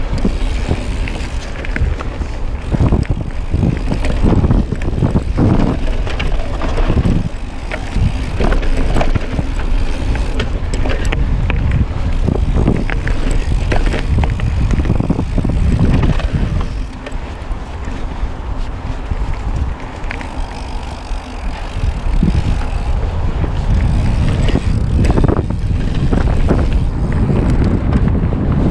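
Mountain bike riding fast down a dirt forest trail, recorded close on the bike: wind rushing over the microphone and tyre rumble on the dirt, with frequent rattles and knocks from the bike over bumps. About two-thirds of the way in, the run goes quieter and smoother for a few seconds, then picks up again.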